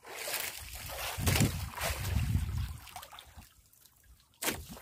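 Sea water sloshing and lapping against the hull of a small wooden outrigger boat, loudest in the first few seconds and then easing off. A short sharp knock sounds near the end.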